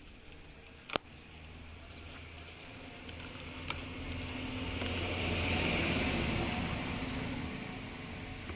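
A motor vehicle passing by: its engine hum and road noise swell to a peak about six seconds in and then fade. A sharp click sounds about a second in.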